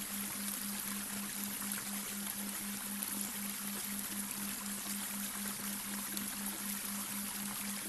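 Babbling brook: an even, unbroken rush of flowing water. Under it runs a steady low hum that pulses about three times a second, a delta binaural-beat tone.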